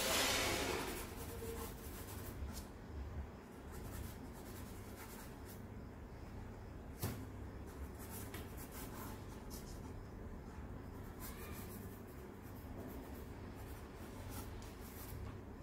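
Stick of charcoal scratching and rubbing over drawing paper in short shading strokes. A louder rustle comes in the first second, and a single sharp click about seven seconds in.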